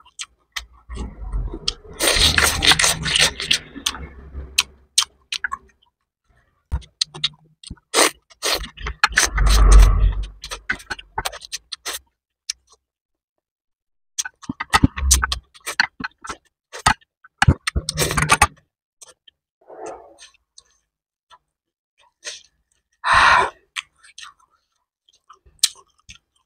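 Close-miked eating sounds: chopsticks clicking and scraping on a plate as shredded chicken salad is picked up, with mouth sounds of chewing in between. There is a brief hum near the end.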